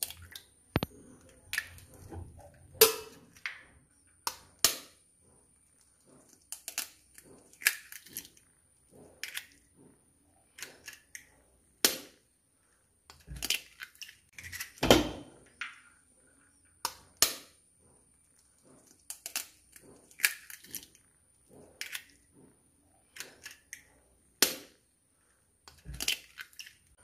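Hen's eggs being cracked open one after another over a glass bowl: a long series of sharp, irregular taps and cracks of eggshell, some in quick clusters.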